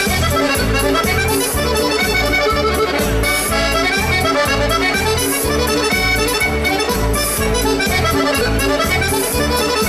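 Organetto (diatonic button accordion) playing a traditional dance tune, its bass and chord buttons keeping a steady pulse about three times a second under the melody.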